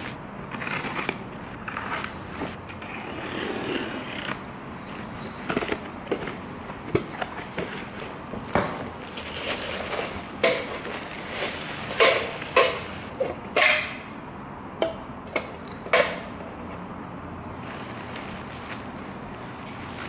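Honeycomb kraft-paper packing wrap and plastic packaging being handled and pulled open by hand: irregular rustling and crinkling with sharp crackles, busiest near the middle.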